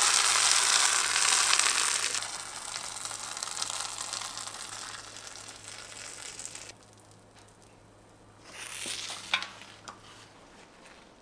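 Hot sugar syrup for handmade candy pouring onto a steel cooling table, hissing and sizzling as it foams and spreads. The sizzle is loudest in the first two seconds, fades, and stops about two-thirds of the way through. A short rustle and a sharp click follow near the end.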